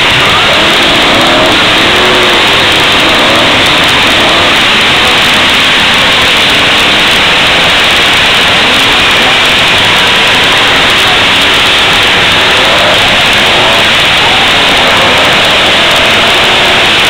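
Engines of several demolition-derby cars running and revving at once. The sound is loud, steady and saturated, with crowd voices shouting over it.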